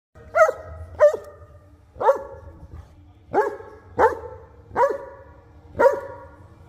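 Newfoundland dog barking seven times, about once a second, each bark rising and then falling in pitch. She is barking at another dog to get him to play.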